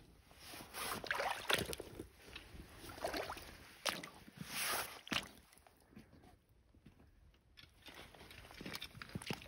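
Rubber boot wading through a shallow, rocky creek, water splashing and sloshing with the steps. The splashing dies down about six seconds in, leaving a few light clicks.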